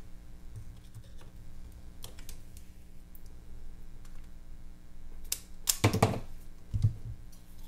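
Light clicks and scrapes of a circuit board and screwdriver being handled. About five and a half seconds in come a few sharp clacks as a small desoldered transformer comes free and drops onto the bench, followed by a low thump.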